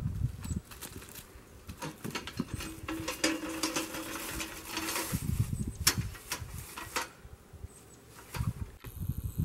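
Footsteps crunching through dry leaf litter, with irregular rustling and a few sharp clicks and knocks. A low steady hum runs for a couple of seconds in the middle.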